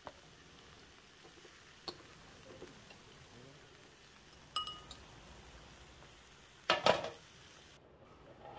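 A stainless-steel spoon taps, clinks and scrapes against a nonstick electric griddle plate while scooping up crispy scorched fried rice. A small tap comes early, a single ringing clink comes about halfway, and a louder scrape-and-clatter comes near the end.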